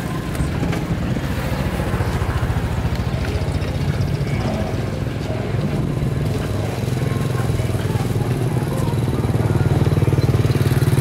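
Motorcycle engine running: a steady low hum with a fast, even beat that grows louder near the end.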